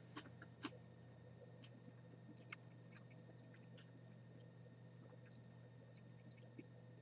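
Faint chewing of a boiled-and-dried Chinese yellow scorpion (Mesobuthus martensii): small scattered crunches and clicks from the mouth, a little stronger in the first second, over a steady low hum.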